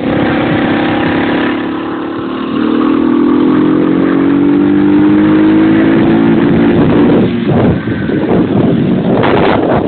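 Kinroad moped's Honda SS50-type 50cc four-stroke single-cylinder engine running under way, its pitch rising steadily as it accelerates. From about seven seconds in, wind buffeting the microphone covers it.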